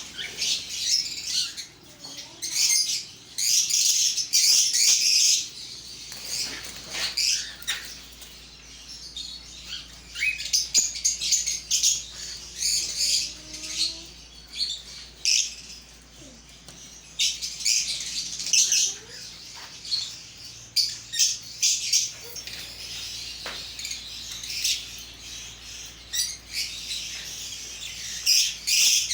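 A flock of caged parrots chirping continuously in dense bursts of high-pitched calls.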